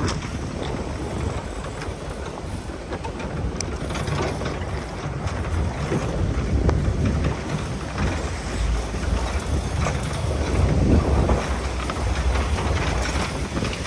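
Ford 4x4 driving slowly along a rough dirt track: the engine runs low under a steady rumble of tyres and body over the uneven ground, swelling and easing as the surface changes.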